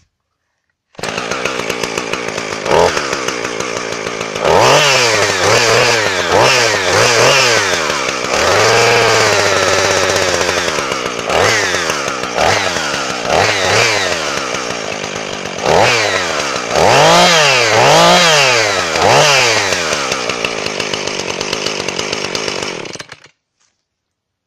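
Husqvarna 450e two-stroke chainsaw starting about a second in and running, revved up and down in repeated throttle blips with one longer hold near the middle. It cuts off shortly before the end.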